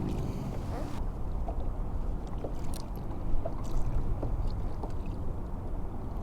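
Steady low wind and water rumble around a moving kayak, with scattered small clicks and taps as fishing tackle and bait are handled; the sharpest tap comes about three and a half seconds in.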